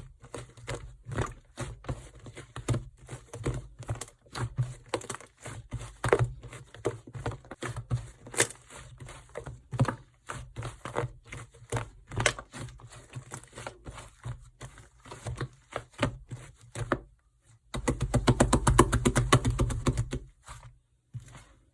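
Fluffy slime being squeezed and poked by hand, giving irregular soft squishes and sticky pops. Near the end comes a dense run of rapid crackling for about two seconds.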